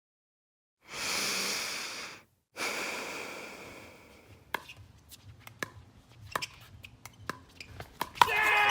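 Two bursts of rushing noise, the first cut off suddenly and the second fading away, then a string of sharp, irregular knocks from pickleball paddle hits and the ball bouncing on the court. Voices come in near the end.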